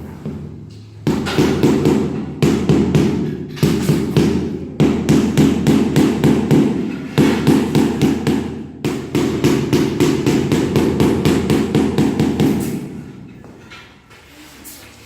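Rapid, repeated knocking, about four strokes a second, in runs of one to three seconds with short breaks. It starts about a second in and fades out near the end.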